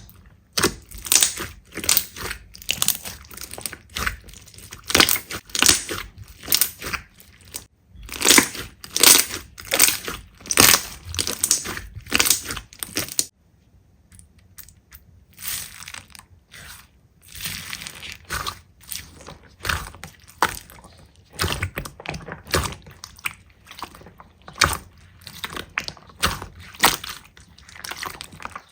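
Hands squeezing and pressing slime: rapid crunchy crackles and pops, two or three a second, with a short pause about halfway through.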